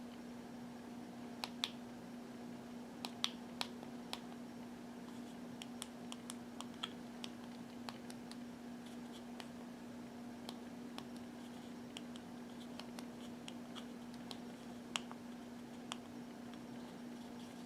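Small plastic buttons on a Unication NP88 numeric pager being pressed, giving a series of sharp, irregular clicks while the time is being set. A steady low hum runs underneath.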